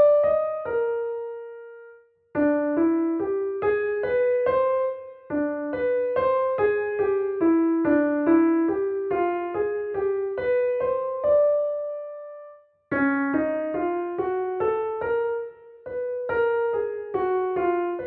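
Solo piano playing a single-line atonal melody of evenly paced notes, six-note scales and phrases built from hexachords. The line pauses briefly after a held note about two seconds in and again after a longer held note about twelve seconds in.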